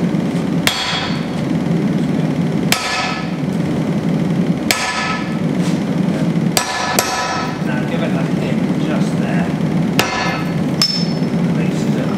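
Sledgehammer blows on a handled top tool held on glowing axe steel over an anvil, each strike a sharp metallic ring. The blows come slowly, about one every two seconds, with two in quick succession near the middle, over a steady low hum.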